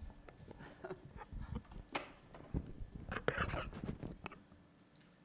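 Handling noise close to a microphone: irregular rustling and light knocks that stop about four and a half seconds in.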